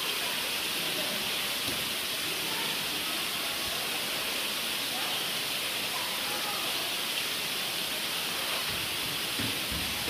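Steady rushing hiss, even and unbroken, with faint distant voices underneath.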